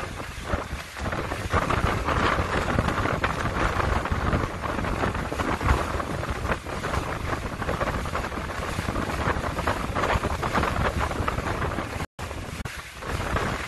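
Wind gusting across the phone's microphone aboard a moving boat, over the rush of the water. The sound cuts out for an instant near the end.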